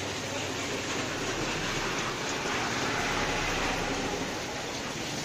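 Steady rushing and bubbling of aquarium water, churned by aeration or a filter's return flow.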